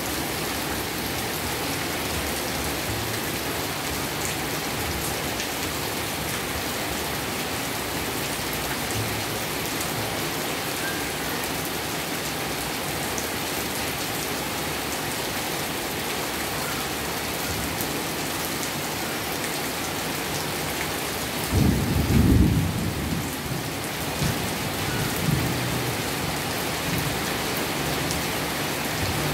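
Heavy rain falling steadily, its intensity starting to ease. A little over two-thirds of the way through, thunder rumbles low and briefly, with fainter rumbles just after.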